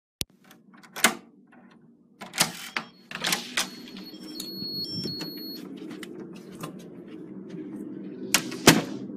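Metal lever handle and latch of a room door clicking and knocking as the door is unlatched, opened and pulled shut, with a short run of high electronic beeps about halfway through and a low steady hum behind.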